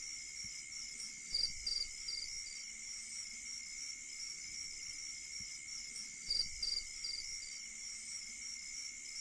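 Crickets and other night insects chirping steadily, a high ringing with a quick pulsing trill. A louder run of four short chirps sounds twice, about five seconds apart.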